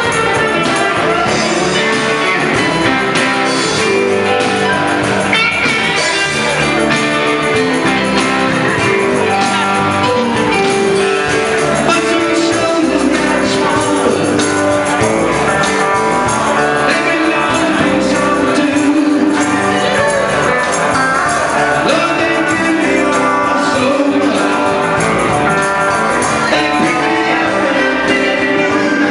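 Live rock band playing a song loudly: electric guitars, bass and drums, with a woman singing.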